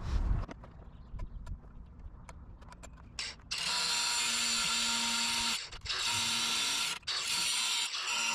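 A few light clicks and ticks, then a handheld cordless cutting tool cutting through metal from about three and a half seconds in: a loud, steady, gritty whine with a motor hum underneath, stopping briefly twice before carrying on.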